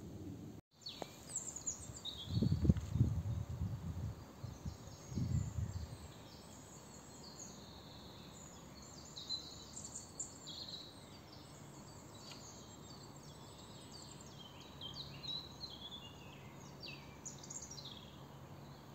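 Songbirds singing in woodland: many short chirps and trills, high-pitched and overlapping. Low rumbles in the first few seconds are louder than the birds.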